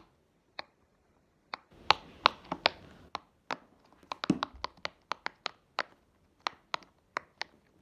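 Tie-dyed silicone waffle pop-it fidget toy having its bubbles pressed through: an irregular run of sharp pops, a few at first, then several a second.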